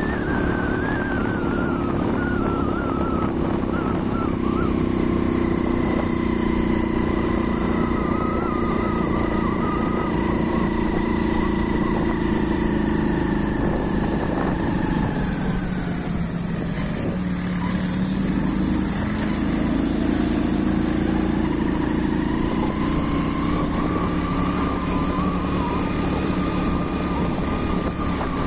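Motorcycle engine running steadily under way. Its pitch drops around the middle as the bike slows, then rises again as it picks up speed.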